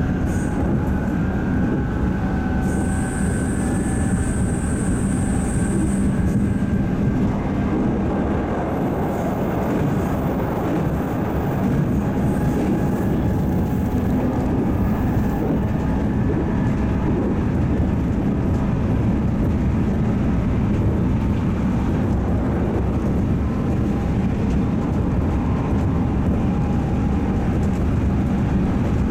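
Steady interior running noise of a JR 211 series electric multiple unit: the rumble of wheels on rail mixed with the sound of its traction motors.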